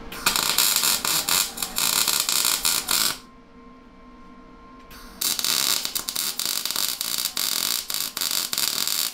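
Wire-feed welder arc crackling steadily as a bead is laid. It runs for about three seconds, stops for about two seconds, then starts again about five seconds in.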